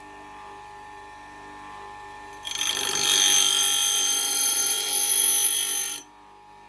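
Axe blade ground against a running grinder to sharpen it. A loud, harsh grinding with high ringing tones from the steel starts abruptly about two and a half seconds in, lasts about three and a half seconds, and stops sharply, leaving the motor's low hum.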